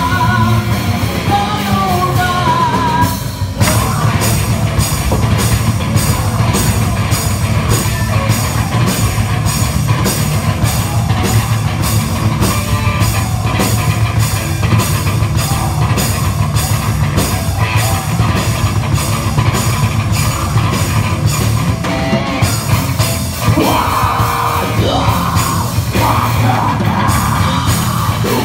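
A live rock band playing loud: electric guitar, bass and drums with a steady beat, and a singer singing and yelling over them. The band breaks off briefly about three seconds in, and the yelled vocals come back near the end.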